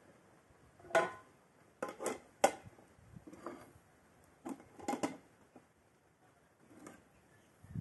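Stainless steel pots and bowls clanking as they are handled, in a series of about nine separate knocks, the loudest about a second in and again about two and a half seconds in.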